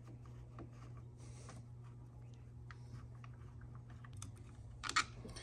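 Faint, irregular small clicks and ticks of a screwdriver backing the screws out of an ATV handlebar switch housing, with a sharper cluster of clicks near the end.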